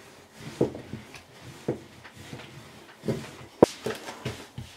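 Hands handling and working a thin sheet of fresh egg-pasta dough on a worktop: scattered soft thumps and rubbing, with one sharp knock about three and a half seconds in.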